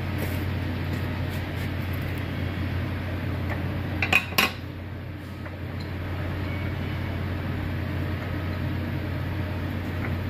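Light metal-on-metal clinks and ticks as tools and fittings are handled on a connecting-rod boring machine, with a quick cluster of sharp clinks about four seconds in, over a steady low machine hum.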